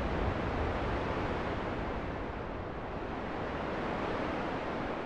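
Fighter jets' engine noise dying away after a flyby: a steady rushing rumble with no distinct tones, slowly fading.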